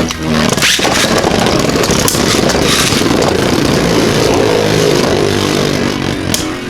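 Two Beyblade Burst spinning tops, Vise Leopard and Emperor Forneus, spinning and colliding in a plastic battle stadium: a steady whirring with a few sharp clicks of hits near the end.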